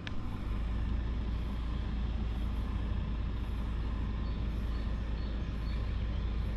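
A steady low rumble, beginning about half a second in and holding level, with a short tick right at the start.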